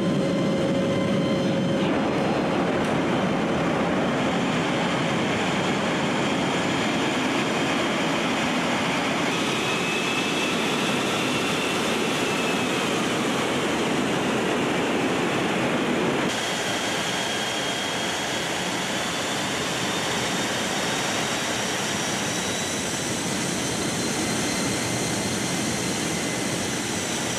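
Steady rushing noise of a C-17's four turbofan engines and the airstream heard inside the cargo hold, with a faint high whine over it. The level drops slightly about sixteen seconds in.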